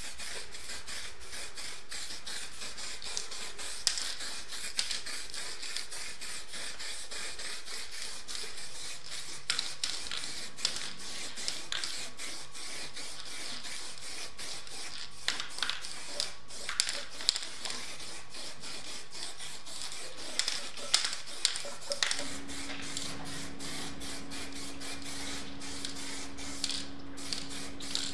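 Aerosol spray paint can hissing steadily, with frequent short sharp clicks over the hiss. A steady low hum comes in near the end.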